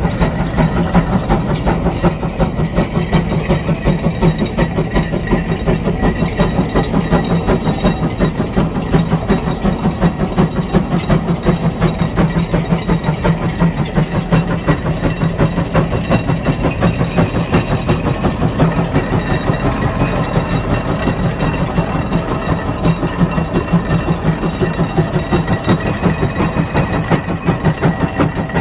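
150 Case steam traction engine pulling a 44-bottom plow, its exhaust chuffing in a rapid, steady beat.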